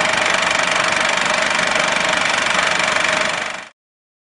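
Engine idling steadily, used as an intro sound effect, that stops abruptly about three and a half seconds in.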